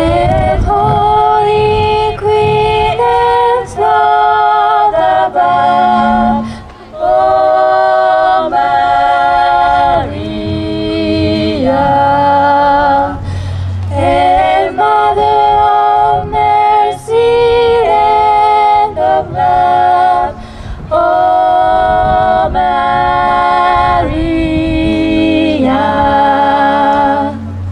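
Small a cappella vocal group singing a slow hymn in close harmony through microphones. Held chords change about every second, with short breaths between phrases and a sustained low bass note underneath.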